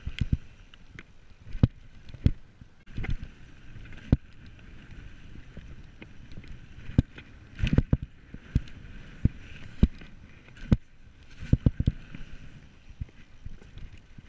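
Specialized Enduro Elite mountain bike descending a dirt trail: tyres rolling over the dirt, with irregular sharp knocks and rattles as the bike hits bumps, several in quick clusters, over a steady rushing noise.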